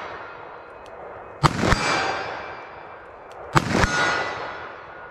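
Two shots from a .44 Magnum revolver fired double action, about two seconds apart. Each shot is followed a fraction of a second later by the clang of the bullet striking a steel silhouette target about 50 yards off, and then a long echoing decay.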